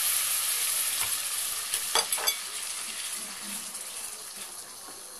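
Ground onion paste sizzling as it goes into hot oil and melted butter in a stainless steel kadai. The sizzle fades steadily, and a few spatula strokes scrape the pan about two seconds in.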